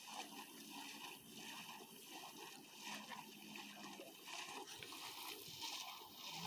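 Faint water splashing and sloshing in shallow lake water, irregular and pulsing.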